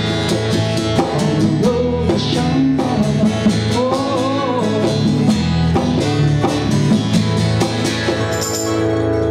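Acoustic band playing a country-rock song: strummed acoustic guitar and mandolin in a steady rhythm over bass, with a wavering harmonica line on top.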